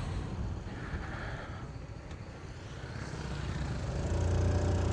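Small motorcycle engine running through a modified exhaust while riding. It eases off, then grows louder about three seconds in as the bike picks up speed.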